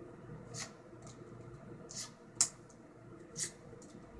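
A few short rustles and scrapes as a leather passport holder is handled and things are slid out of it, the sharpest a little past two seconds in.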